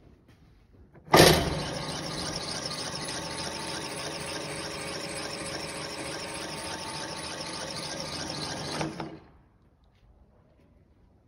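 Matton VM32S mobile grinder switched on with a sharp jolt about a second in, running steadily with a whining, squealing tone for about eight seconds, then switched off and stopping quickly.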